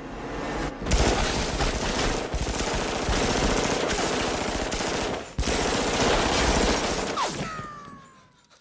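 Dense, rapid pistol gunfire in a long continuous volley, with a brief break about five seconds in. It tapers off near the end.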